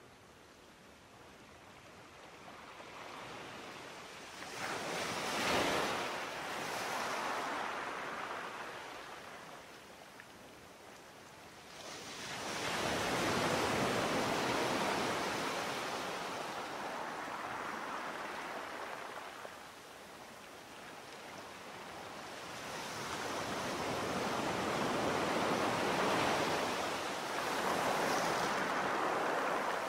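Sea waves surging and receding as a rushing wash of water noise. Three slow swells build and fade, each lasting several seconds, about ten seconds apart.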